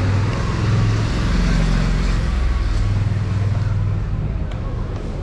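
A motorcycle engine passing close by in the street, its low hum and road hiss strong at first and easing off after about four seconds.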